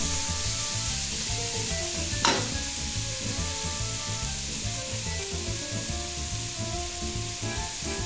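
Chorizo, onion, carrot and peppers sizzling steadily in hot olive oil in a stainless steel pot, with a wooden spatula stirring at first and one sharp knock about two seconds in. Quiet music runs underneath.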